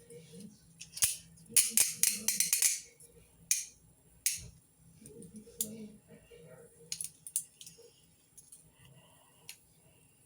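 Metal chain handcuffs being handled: a quick run of clicks about two seconds in, then scattered single clicks and light rattles.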